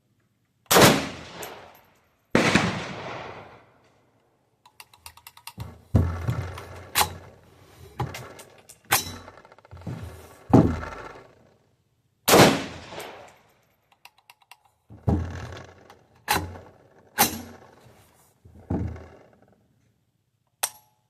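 About a dozen gunshots from a home-built 3D-printed firearm, fired at an uneven pace with pauses of one to three seconds, each shot followed by a short ringing tail. A few small rapid clicks come between shots about five seconds in.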